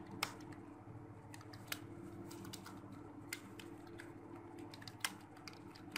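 Computer keyboard keys clicking as text is typed, in quick irregular taps with four or five louder strokes spread through, over a steady low hum.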